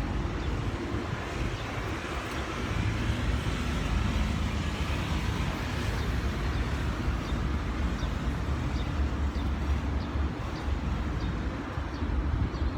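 Steady outdoor background noise with a low, wavering rumble, like distant road traffic.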